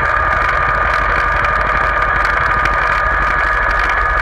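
Tractor engine running steadily at road pace, heard from the trailer it is towing, with a steady high whine over the low rumble.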